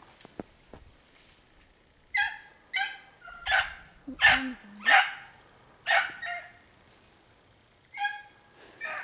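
Four-month-old puppies yelping on the trail of a hare: a string of about nine short, high yelps in uneven bursts, starting about two seconds in.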